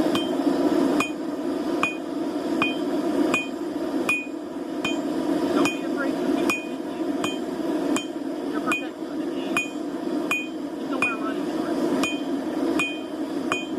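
Forging hammer striking steel on an anvil at a steady rhythm, a little more than one blow a second, each blow ringing with a clear metallic tone. Under the blows runs a steady low rushing noise.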